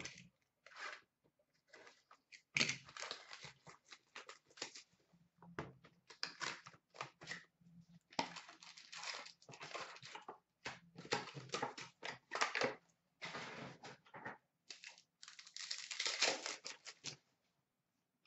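Upper Deck Artifacts hockey card packs being torn open and the cards handled: irregular crinkling and tearing of pack wrappers and rustling of cards, in uneven stretches.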